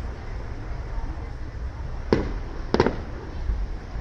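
Aerial fireworks bursting: two sharp bangs about two seconds in, a little over half a second apart.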